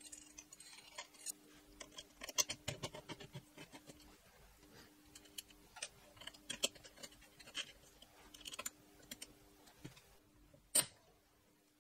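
Faint, scattered light metallic clicks and scrapes of hand assembly: T-nuts being worked into the slot of an aluminium extrusion and the bracket's bolts tightened with a hex key. There is one sharper click near the end.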